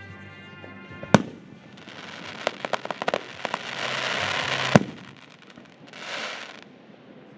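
Aerial fireworks bursting: a sharp bang about a second in, then a run of quick pops swelling into a dense crackling hiss. A second loud bang comes near the five-second mark, followed by a short hissing burst.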